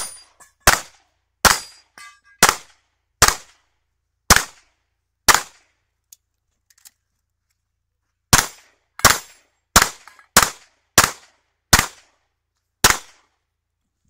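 Pistol shots, each loud and sharp with a short echo: seven fired about a second apart, a pause of about three seconds, then seven more at a similar pace.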